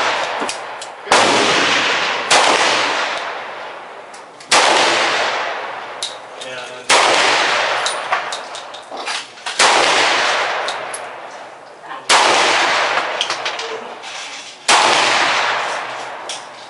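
Black Star Type 54 pistol, a Chinese copy of the Tokarev in 7.62×25mm, fired in slow single shots: seven shots about two to two and a half seconds apart. Each shot echoes and dies away over about two seconds, with small clinks between shots.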